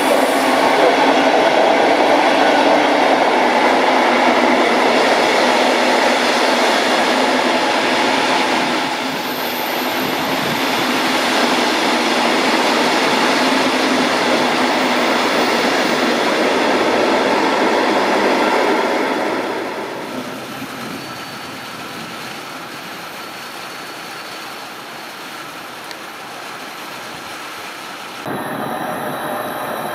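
A long train of passenger coaches rolling past at speed, with a dense rush and rumble of wheels on rail. The noise stays loud for about two-thirds of the time, then drops off sharply as the last coaches pass and the train moves away. Near the end the sound changes abruptly to a different, quieter trackside scene.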